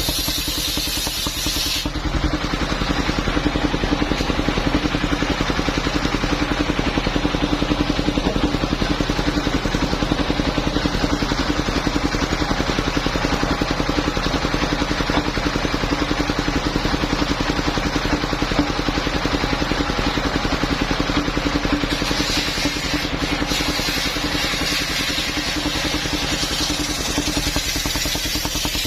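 Engine of a portable circular sawmill running steadily. The tone of the machinery shifts about two seconds in and shifts back some seven seconds before the end.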